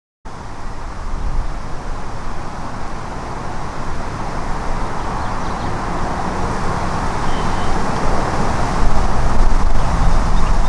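Outdoor ambience picked up by a camcorder's built-in microphone: wind buffeting the microphone as a rough low rumble over a steady rushing noise. It cuts in just after the start and grows gradually louder.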